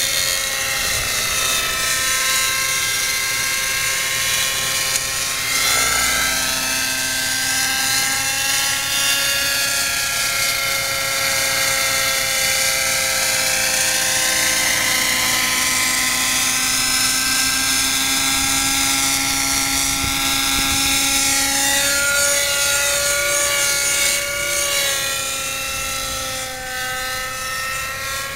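X-Cell 90 RC model helicopter in flight: its nitro glow engine and rotors make a steady high whine whose pitch rises and falls as it maneuvers. It grows quieter over the last few seconds as it flies away.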